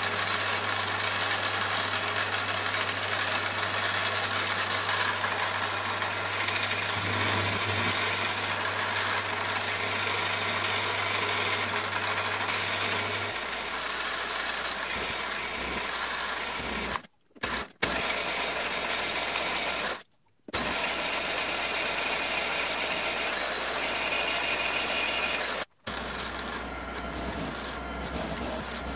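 Milling machine spindle running a twist drill into a solid aluminium block: a steady motor hum with the drill's cutting noise. The machine's low note changes about halfway through, and the sound cuts out briefly several times.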